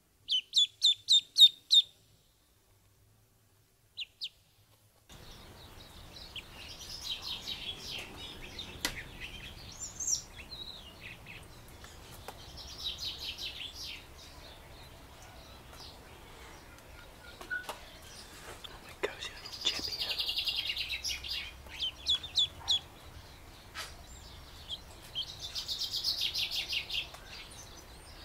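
Duckling peeping: a quick run of about six loud high peeps at the start, then repeated bursts of rapid peeping over a faint steady background hiss.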